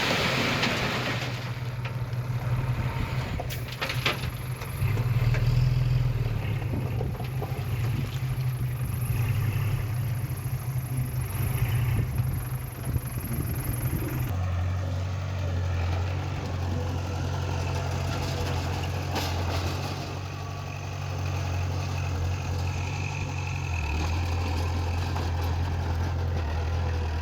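Heavy diesel machinery engine running steadily at low revs; its drone drops in pitch abruptly about halfway through.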